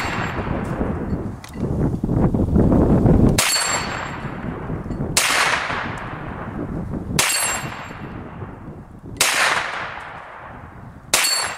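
Hi-Point 9mm carbine fired five times at a slow, even pace, about two seconds apart, each shot trailing off in a long echo. Before the first shot there is a few seconds of low rumbling noise.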